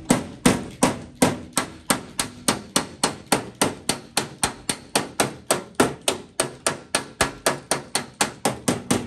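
Body hammer tapping a 1950 Mercury's steel body panel in an even run of sharp strikes, about three a second, each ringing briefly: working a low spot out of the metal.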